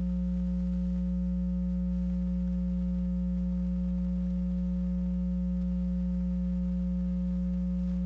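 Steady low electrical hum, an unchanging drone with a faint buzz above it, of the kind picked up in a tape transfer.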